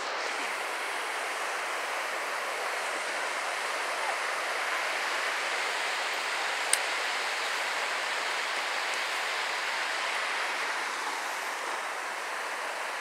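Steady rush of a creek flowing over rocks, with one brief click about seven seconds in.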